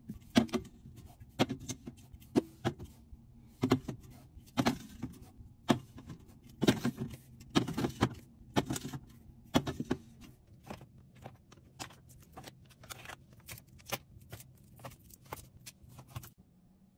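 Containers and bottles being set down and arranged on fridge shelves: a run of clinks and knocks, heavier for the first ten seconds, then lighter, quicker taps that stop about a second before the end.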